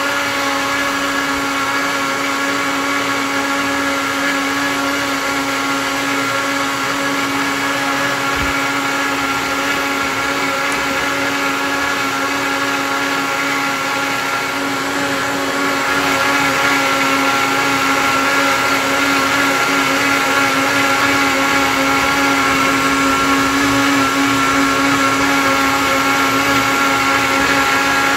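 Silver Crest heavy-duty blender running steadily, its motor whining as it blends a runny cake batter. The sound steps up a little in loudness about halfway through.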